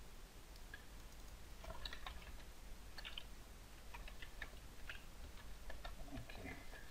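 Faint computer keyboard typing: irregular light key clicks, bunched in short runs.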